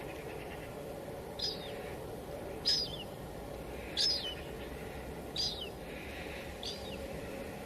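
Steady drizzle pattering on a window, with a bird repeating a short, high call that falls in pitch, five times at even intervals.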